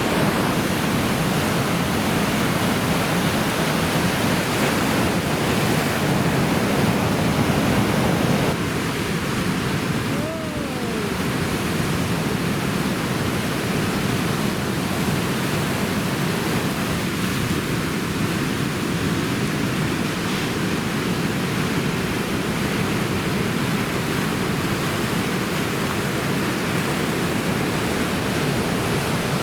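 Heavy typhoon surf: a steady, dense wash of breaking waves and wind, a little quieter from about eight seconds in.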